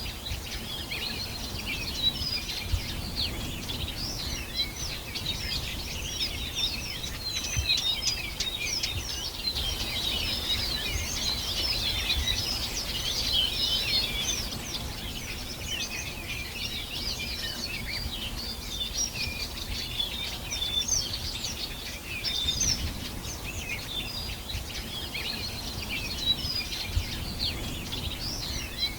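A chorus of many small birds chirping and twittering at once, short high calls overlapping densely and busiest midway through, over a low steady rumble.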